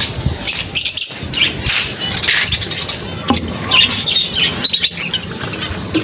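Many caged budgerigars and finches chirping and chattering together, with short high calls overlapping throughout.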